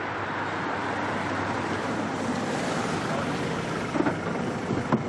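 Steady traffic noise from passing road vehicles, with a couple of short knocks near the end.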